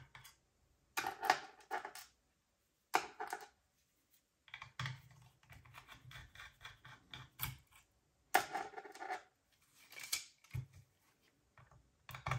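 Small screwdriver backing the tiny screws out of the side of a laptop hard drive's mounting frame: short metallic clicks and scrapes in several bursts, with brief silences between them.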